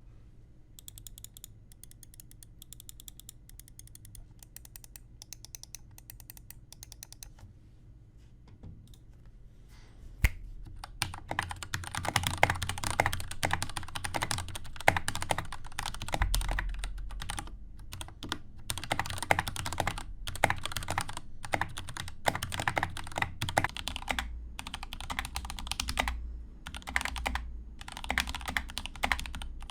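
Mechanical keyboard with Gateron Black linear switches, typing. The first ten seconds are faint, evenly spaced key presses; from about ten seconds in comes fast, louder typing.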